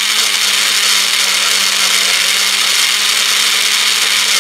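Personal bullet-style blender running, a loud steady whir with a constant low hum, as it blends strawberries, ice cream and maple syrup into a milkshake.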